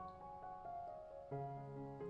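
Soft background piano music, notes struck and held with a new chord about a second and a half in.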